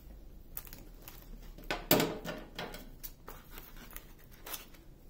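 Clear packing tape pulled from its roll, with a short loud rip about two seconds in, among scattered crinkling and handling sounds of the paper-backed canvas. The tape is snipped with scissors near the end.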